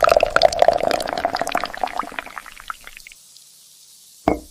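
Liquid pouring and splashing, a dense patter of small splashes that fades out about three seconds in, followed by a short knock near the end. It is an AI-generated sound effect track.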